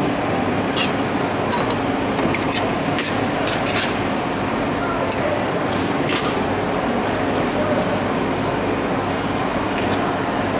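Shredded meat frying in bubbling fat in a large, wide steel pan, giving a steady sizzle. Metal tongs click against the pan several times as the meat is lifted out.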